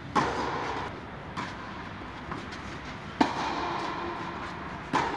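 Tennis balls struck by rackets in a rally, sharp echoing hits under an air-dome roof: a loud hit just after the start, the loudest a little past three seconds in and another near the end, with fainter knocks between.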